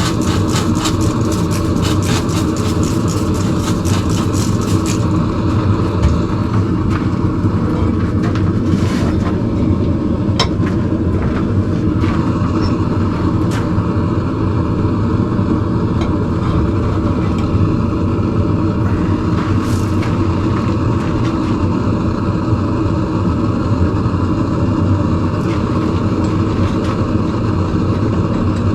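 A forge running with a steady, loud rumble. Over it comes a quick run of sharp strikes, about four a second, for the first five seconds, then a handful of single knocks.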